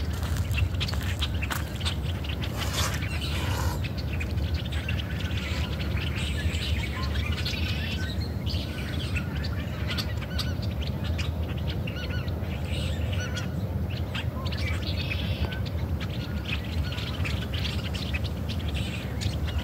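Many small birds chirping and calling, short scattered notes all through, over a low steady rumble.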